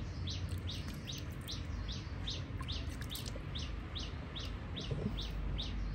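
A bird chirping over and over, a short high falling note repeated evenly about two to three times a second, over a low steady rumble.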